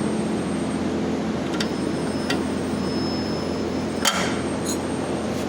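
Steady machine hum in a workshop with a few light metallic clinks and taps, the sharpest a little after four seconds in, one leaving a brief high ring.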